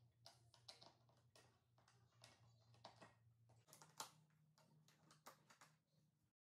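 Faint, irregular clicks and scrapes of a screwdriver turning metal cam-lock fittings in a particleboard furniture panel, seating and tightening them onto their cam bolts. The sharpest click comes about 4 s in, and the sound stops abruptly near the end.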